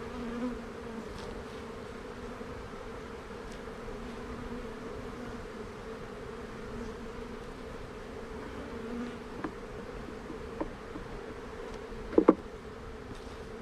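A swarm of Russian honey bees buzzing in a steady hum, with a few short wooden knocks, the loudest a double knock near the end, as frames are set back into the hive box.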